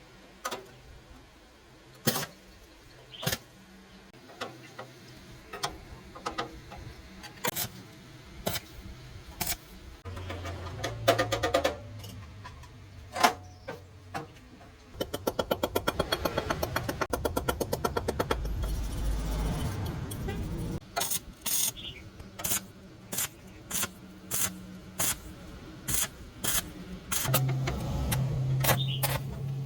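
Workshop tool sounds: scattered sharp clicks and knocks, with a fast, even rattle lasting about three seconds around the middle.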